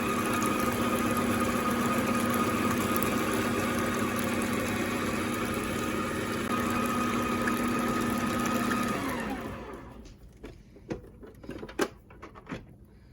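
Electric mixer running steadily as it beats egg and milk into creamed sugar and lard, then switched off about nine seconds in, its motor winding down. A few light knocks follow.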